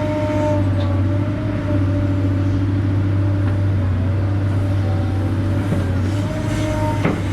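A heavy machine's diesel engine running steadily, a high whine held over its low rumble. A few sharp metallic clanks come near the end.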